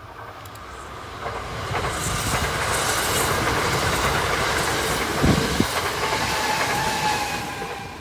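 A six-car Kintetsu limited express electric train, a 12400-series set coupled to a 22600-series set, passing at speed. The rumble builds over the first couple of seconds and holds loud, with the wheels clacking over rail joints about five seconds in, then fades quickly as the last car goes by.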